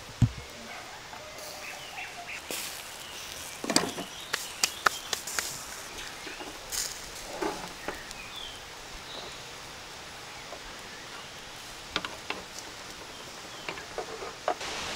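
Skewered lamb shashlik grilling over an open fire: fat dripping onto the fire sets off irregular sharp crackles and pops over a faint steady sizzle, with a low thump just after the start.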